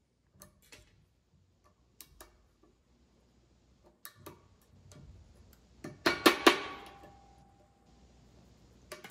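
Small metal clicks and scrapes of needle-nose pliers fitting a snap ring into a driveshaft U-joint yoke, then a quick cluster of sharp metal clacks about six seconds in, followed by a brief ringing tone.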